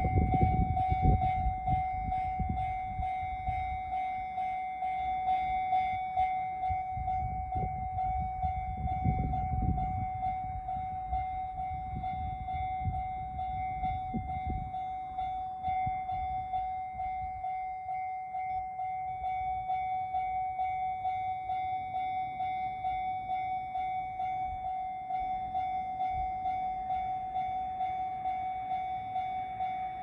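Japanese level-crossing alarm ringing steadily in its repeating 'kan-kan' pattern while the warning lights flash. A low rumble sits under it for roughly the first ten seconds, then fades.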